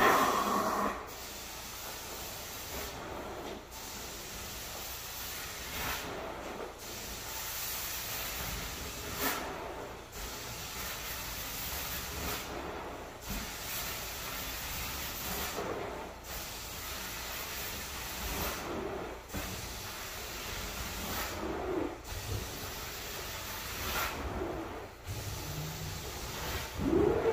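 Rug-cleaning wand working over a rug, a steady spraying and suction hiss. The hiss drops out briefly about every three seconds, as each stroke ends.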